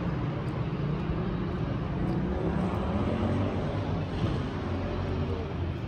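Outdoor city ambience: a steady low rumble of road traffic.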